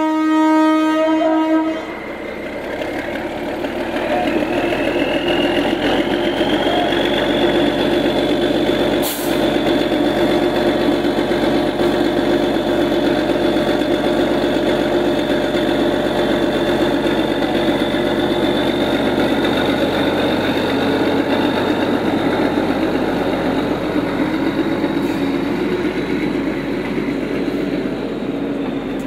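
Railway inspection car's horn sounding for about two seconds, then its diesel engine running steadily, with a high whine that climbs in pitch over about five seconds and then holds. A single short click about nine seconds in.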